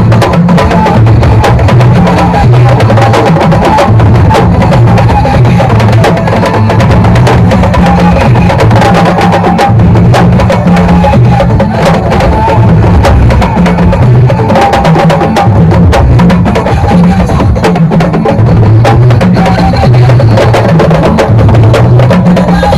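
Loud drum-driven music, with dense drum strikes in quick succession over a steady low bass.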